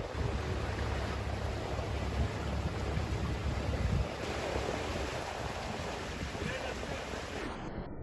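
Wind buffeting the microphone with a low rumble for about the first four seconds, over a steady rushing outdoor noise. The sound changes abruptly near the end.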